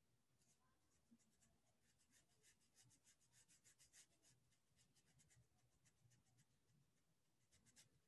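Very faint scratching of a Pentel water brush's tip stroking watercolour onto paper: a quick run of short strokes, then a few more near the end.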